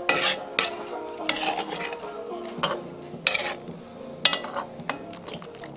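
Metal cooking utensils scraping and clinking against a cast-iron kazan while chicken pieces are turned in a thick cream sauce: about six sharp, irregularly spaced clinks and scrapes.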